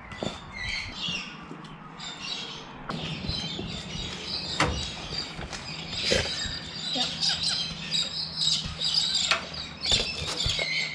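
Birds chirping and squawking, with a few sharp clicks and knocks and a steady low hum underneath.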